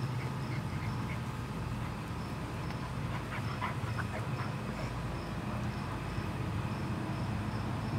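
Bullmastiff puppy and adult Bullmastiff at play, with a few short dog noises around the middle, over a steady low hum.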